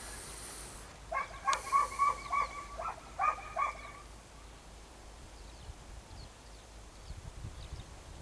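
A distant animal calling in a run of short, evenly spaced calls, about three a second, for roughly three seconds with a brief break, then faint small-bird chirps.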